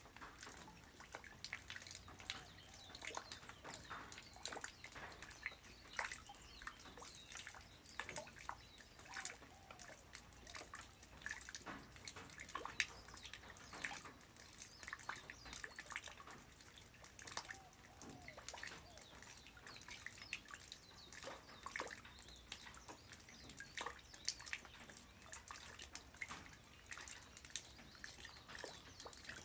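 Light rain falling on the ground: many small drops striking irregularly over a soft steady hiss.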